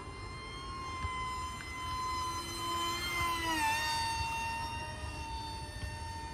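Electric motor and propeller of an AeroScout RC plane whining in flight as it passes by: it grows louder, drops in pitch about three and a half seconds in, then fades.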